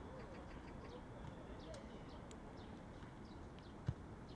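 Faint open-air ambience with small birds chirping over and over and faint distant voices, and one sharp thud of a football being kicked near the end.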